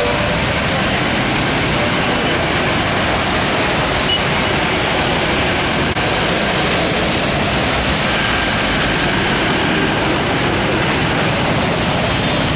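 Steady rushing of muddy floodwater pouring across a road, mixed with traffic driving through it.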